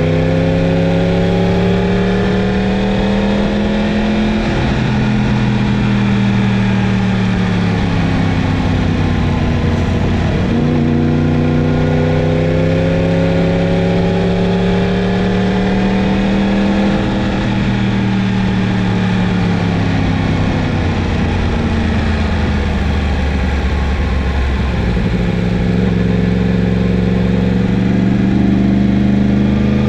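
Yamaha MT-10's crossplane inline-four engine under way, its revs climbing and falling several times as the throttle is opened and rolled off.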